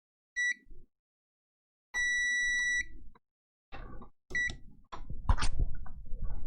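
A multimeter's continuity tester beeping three times, a short beep, a beep of about a second, then another short beep, as the new button's contacts are bridged: the beep signals that the switch is closing and the button works. Knocks and clatter of handling follow in the second half.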